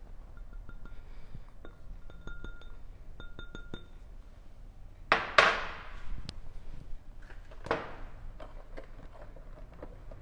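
Kitchen-utensil clinks and knocks as a silicone spatula scrapes flour from a ceramic bowl into a glass mixing bowl. A few sharper knocks stand out, the loudest about five seconds in and another near eight seconds, as bowls and tools are handled on the counter.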